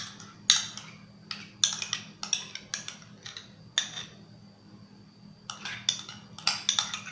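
Metal spoon scraping and knocking against a small bowl and a glass bowl while scooping out mayonnaise: a run of short clicks and scrapes, with a pause of about a second and a half midway.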